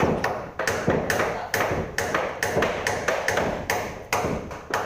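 Repeated sharp knocks or taps, evenly spaced at about two a second, each dying away quickly.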